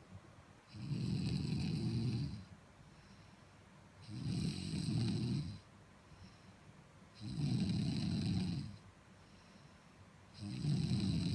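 A person snoring loudly in deep, rasping snores, four long ones evenly spaced about three seconds apart, with quiet gaps between them.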